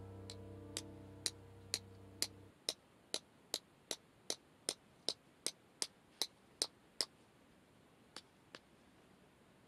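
Piano music fading out over the first couple of seconds. Under it, a run of sharp, evenly spaced ticks at about two and a half a second, clock-like, stopping about seven seconds in, with two more ticks near the end.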